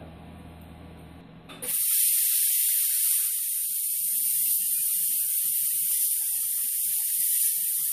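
Hypertherm 380 plasma cutter firing up about a second and a half in, then a loud, steady hiss of the torch's air and arc as it cuts through the steel wall of an emptied CO2 cylinder.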